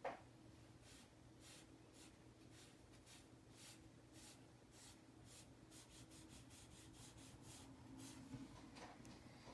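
A short knock, then faint scratchy strokes of a PanPastel sponge applicator rubbing pastel across paper, about two a second at first and quickening to several a second around the middle, over a low steady hum.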